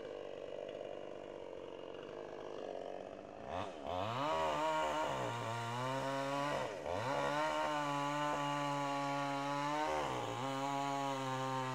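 Chainsaw running quietly at first, then revved up about three and a half seconds in and held at high speed while cutting up a storm-felled tree trunk. Its pitch drops briefly and comes back up several times.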